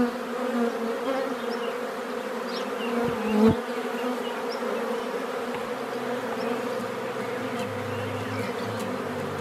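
A swarm of honeybees buzzing steadily in a dense, even hum as the colony walks from a sheet into a straw skep hive; the buzzing swells briefly about three and a half seconds in.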